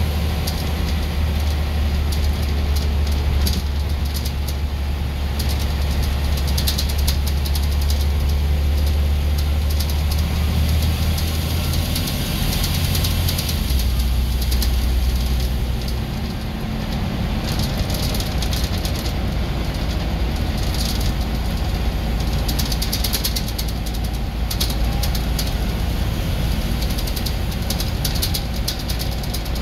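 Scania N94UB bus's nine-litre five-cylinder diesel heard from inside the saloon on the move, a steady low engine note with frequent light rattles. The engine note steps down about twelve seconds in, then runs on less even.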